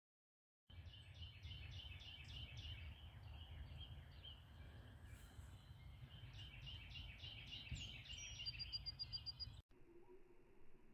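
Small songbird chirping in two long runs of quick repeated notes, with a short fast trill near the end, over a low rumble of wind on the microphone. The sound cuts off abruptly near the end.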